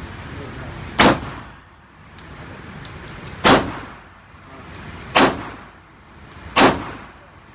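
Four gunshots fired one at a time, a second and a half to two and a half seconds apart, each loud crack trailing off in a short ringing tail, with fainter sharp clicks in between.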